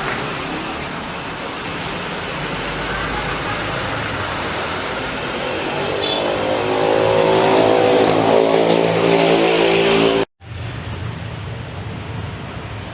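A vehicle engine running loudly, its pitch climbing as it revs up over several seconds, then cut off abruptly about ten seconds in. It is followed by a steady, quieter background hum.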